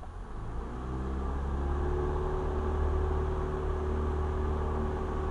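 Cessna 172R's four-cylinder Lycoming engine and propeller being opened up to full power for the takeoff run of a touch and go. The engine note rises over the first second or two, then holds steady.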